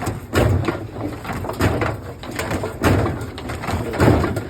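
Washing machine drum turning with a heavy loose object, such as a rock, inside, thudding and clattering about once every second or so. The machine is jammed: something in the drum has come loose and needs to be dislodged.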